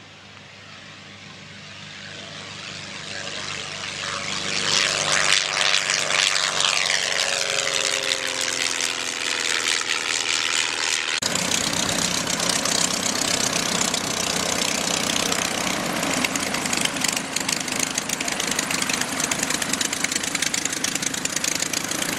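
Dyke Delta light airplane's propeller engine growing louder as the plane flies in low over the runway, its pitch falling as it passes. After a sudden change about eleven seconds in, the engine runs steadily as the plane taxis.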